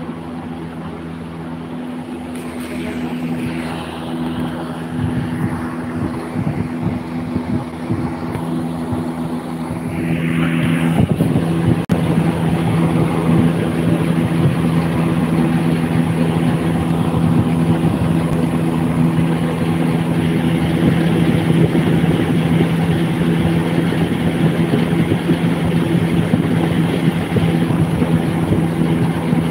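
Desert air cooler running: the fan motor's steady hum over a rush of air, getting louder about ten seconds in and staying so.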